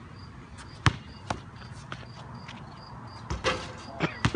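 Basketball bouncing on a concrete court: a few separate, irregular bounces, the loudest about a second in, then a louder, noisier clatter about three and a half seconds in and more bounces just after.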